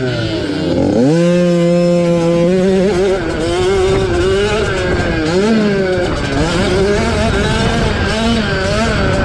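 Two-stroke engines of 50cc youth motocross bikes racing. The pitch climbs sharply about a second in, holds steady for a moment, then rises and falls repeatedly as the throttle is worked.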